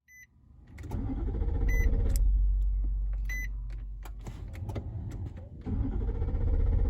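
A 2014 Nissan Armada's starter cranks its V8 engine, which turns over but does not catch. The cranking weakens through the middle, and a second cranking attempt begins about five and a half seconds in. A short electronic chime sounds three times during the first cranking.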